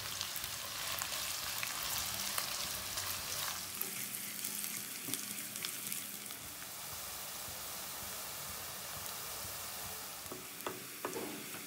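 Sliced onions sizzling and crackling steadily in hot oil in a nonstick kadai, stirred with a wooden spoon. A few sharp knocks near the end.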